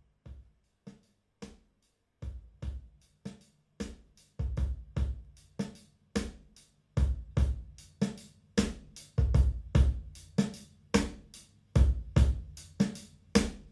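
Solo drum-kit beat of bass drum, snare and hi-hat, played back through Bowers & Wilkins Formation Duo speakers in an untreated wood-walled room. It starts faint and grows steadily louder at about two beats a second.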